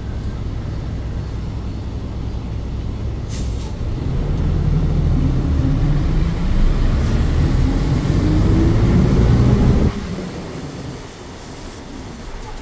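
City bus engine heard from inside the cabin: it runs low and steady, then pulls away from about four seconds in, growing louder and rising in pitch until it cuts back sharply about ten seconds in. Two short clicks come just before the pull-away.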